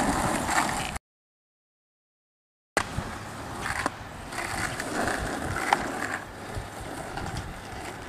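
Skateboard wheels rolling, with a few sharp clacks of the board. The sound stops dead after about a second and comes back near the three-second mark.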